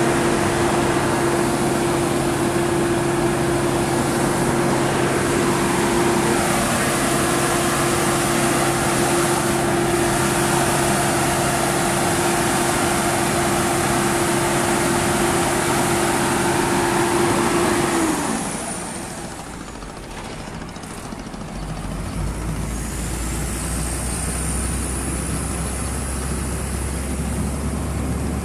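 Engine running steadily, a loud noisy drone with a held tone in it. About eighteen seconds in it drops away, and a few seconds later a lower, quieter engine hum takes over.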